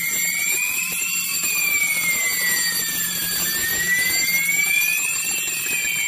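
Fire alarm sounder wailing in a slow rising-and-falling sweep over a steady low hum, set off by the beam smoke detector seeing simulated smoke.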